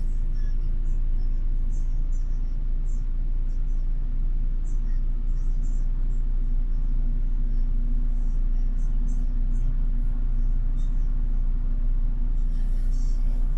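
City bus running, heard from inside the cabin: a steady low engine and road rumble with a steady hum, and faint light ticks scattered through it.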